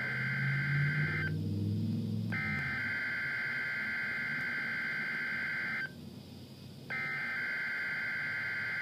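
NOAA Weather Radio SAME header for the Required Weekly Test, coming through a weather radio receiver: buzzing two-tone digital data bursts. The end of one burst is followed by two more, each about three and a half seconds long, with a one-second pause between them.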